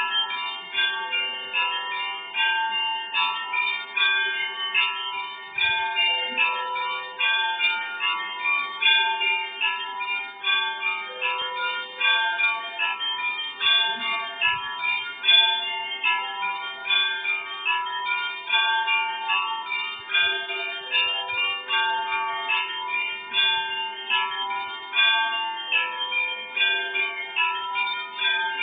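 Russian Orthodox church bells ringing in a fast, continuous peal: many overlapping strikes of several bells at different pitches, over a steady lower bell tone.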